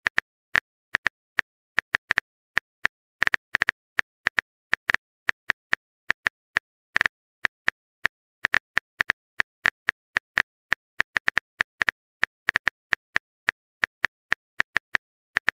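Phone keyboard key-tap sound effect: an irregular run of short, identical clicks, about three or four a second, as a text message is typed out.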